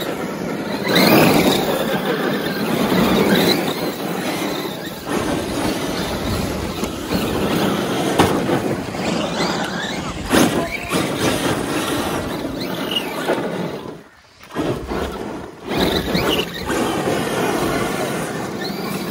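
Electric RC monster trucks, one a Traxxas X-Maxx, driving hard on loose dirt. The motors whine high, rising and falling with the throttle, over the hiss of tyres throwing dirt. The sound drops out briefly about fourteen seconds in.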